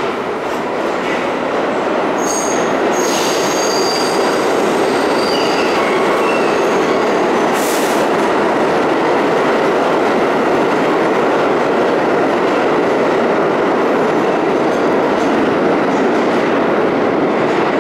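R32 subway train departing an underground station, its wheels on the rails giving a loud, steady running noise as the cars go by. High-pitched wheel squeals come in and out between about two and seven seconds in.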